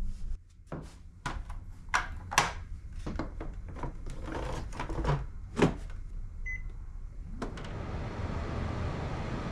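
Panasonic nanoe humidifying air purifier: plastic clicks and knocks as its water-tank drawer is handled, a short beep as it is switched on, then its fan running with a steady whoosh.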